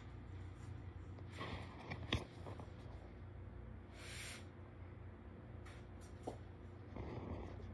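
Kittens playing with small toy balls on a hard floor: light scuffling and rubbing noises, with one sharp click about two seconds in and a fainter tick about six seconds in, over a low steady room hum.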